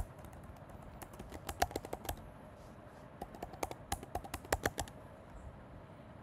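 Computer keyboard keystrokes: quick typing in two short bursts, the first about a second in and the second around four seconds in, then the clicking stops.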